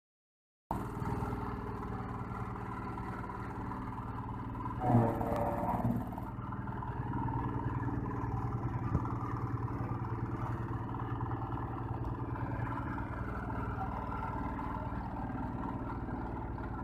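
Rice-straw chopper and its small engine running steadily with a fast, even beat, as straw is fed in. About five seconds in there is a louder burst lasting about a second.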